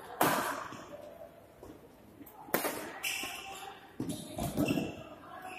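Badminton rackets striking a shuttlecock during a doubles rally: two sharp hits about two and a half seconds apart, then a louder burst of thumps and noise near the end.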